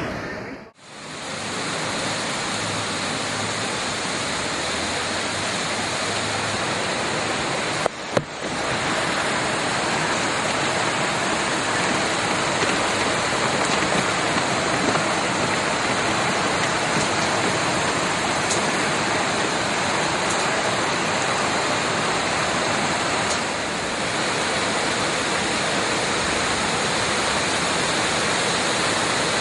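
Fast-flowing floodwater rushing steadily, a dense even roar of water with no lulls, broken only briefly near eight seconds.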